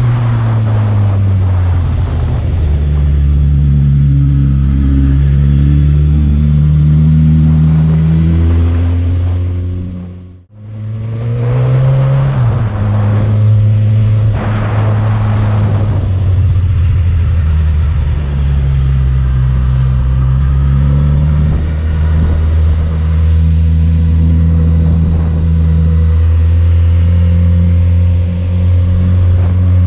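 Motorcycle engine running as the bike climbs a steep, winding mountain road, its pitch rising and falling with throttle and gear changes. The sound briefly fades out and back in about ten seconds in.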